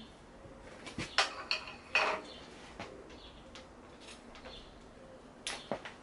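Short clicks and knocks of hand work at the front brake master cylinder and lever on a 1982 Honda CB250RS, with the loudest clatters about one and two seconds in and a close pair near the end. The lever is being pumped to build pressure in a front brake line that still holds a lot of air.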